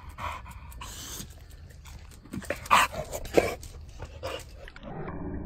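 A bulldog panting in short repeated breaths, with two louder sharp bursts about three seconds in.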